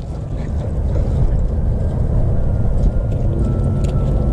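Wind buffeting an outdoor microphone: a loud, steady low rumble.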